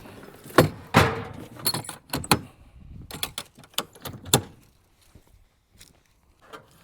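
Handling noise: a run of sharp knocks, clatters and rattles, loudest about a second in, dying away after four and a half seconds or so.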